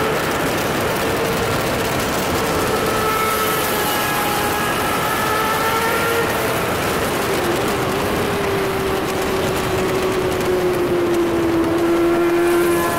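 Racing motorcycle's engine running at speed on track, with a heavy rush of wind noise. Its pitch sinks slowly over the second half while leaned through a corner, then changes abruptly near the end.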